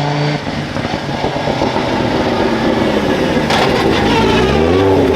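Hill-climb race car engine running hard, its note rising sharply near the end as it accelerates.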